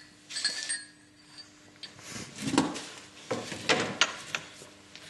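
Cut lengths of optical crystal glass clinking against each other as they are handled, in three short clusters of clinks.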